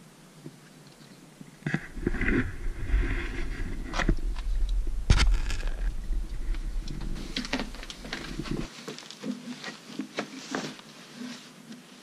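Footsteps and scrambling over stone and brick rubble: grit crunching and scraping underfoot, with several sharp knocks. A low rumble runs through the middle, and smaller scrapes and clicks follow near the end.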